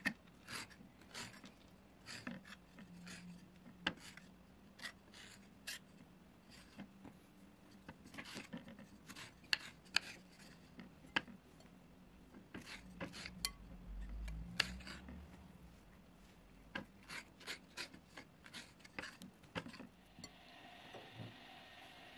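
Small kitchen knife scraping the white pith from the inside of tangerine peels: many short, irregular scrapes and ticks, stopping near the end.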